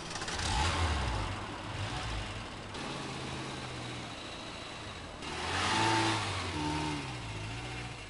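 Small hatchback car's petrol engine revving as it pulls away from rest up a sloping driveway in a hill start. The revs rise about a second in, hold steadier, and climb again around six seconds in.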